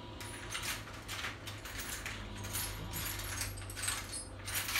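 Irregular rustling and light clinking of small objects being handled and rummaged through, in about half a dozen short bursts, over a steady low hum.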